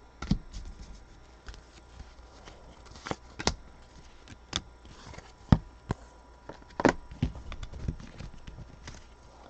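Trading cards being handled and flipped through by hand: scattered sharp clicks and taps of card on card and card on table, with soft sliding between them.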